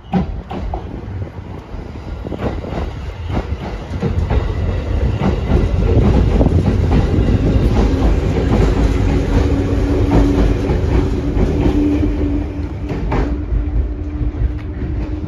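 JR 211 series electric multiple unit departing and passing close by, its wheels clacking over the rail joints. It gets louder about four seconds in as the cars roll past and eases near the end, with a steady hum under the clatter in the second half.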